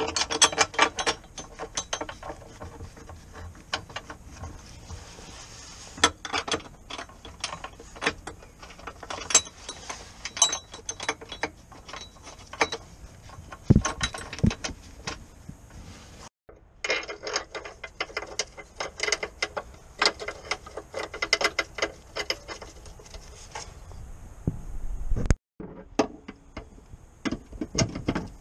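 Hand ratchet clicking in quick runs of strokes as a bolt is wound on the car's underside, with short pauses between runs.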